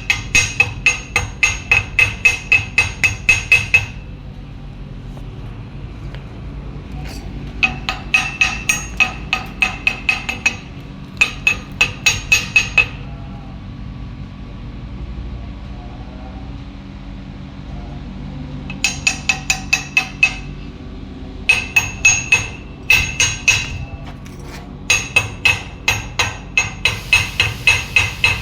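Chipping hammer knocking slag off a stick-welded steel pipe joint, in quick runs of about four ringing blows a second with short pauses between runs.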